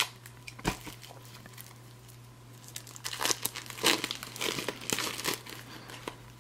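Clear plastic wrapper crinkling and tearing as it is peeled off a deck of cards, loudest about three to five seconds in, after a couple of sharp clicks in the first second.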